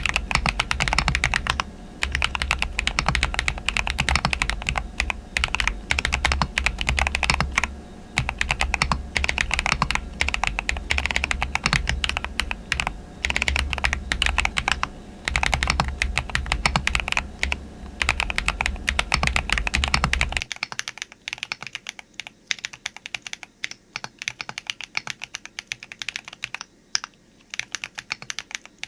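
Fast typing on a fully foamed custom mechanical keyboard with MP Tactile switches: a dense run of keystroke clacks with brief pauses. About two-thirds through the sound turns quieter and thinner, the low hum beneath it dropping away, as the recording switches to another microphone.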